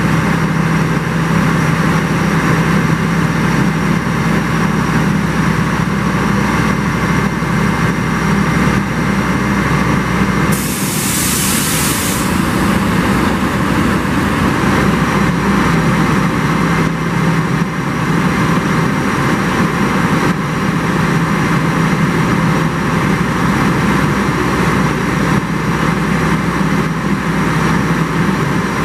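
Cometto modular transporter's engine running steadily as it creeps along on its rows of tyred wheels. About ten seconds in, a loud hiss of released air lasts about a second and a half.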